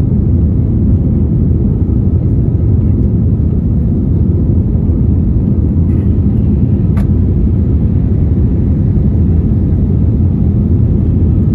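Steady low rumble inside the cabin of an Airbus A321neo climbing after takeoff, from its Pratt & Whitney PW1133G geared turbofan engines and the airflow. A single brief click about seven seconds in.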